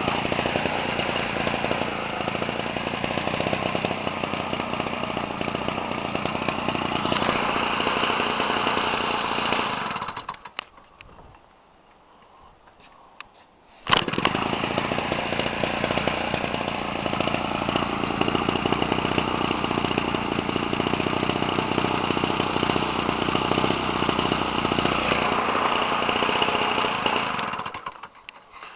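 Homelite 30cc two-stroke engine turning a model-aircraft propeller. It is running at the start, stops about ten seconds in, then catches at once when hand-started again a few seconds later and runs until near the end. It starts by hand very easily.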